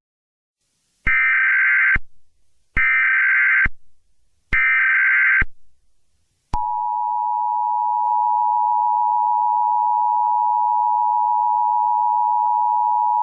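Emergency Alert System tones: three short bursts of SAME header data, each a buzzy, warbling chirp of about a second with short gaps between, then the steady two-tone EAS attention signal starting about halfway through and holding.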